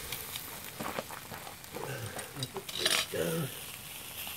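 Whole mullet sizzling on a wire grill rack over hot coals, with clicks and scrapes of a metal spatula against the rack as the fish is turned over. A short murmur of voice comes between about two and three and a half seconds in.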